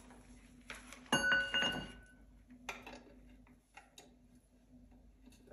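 Metal bicycle crankset parts and tools being handled: one sharp metallic clink about a second in that rings on for about a second, then a few light taps and clicks.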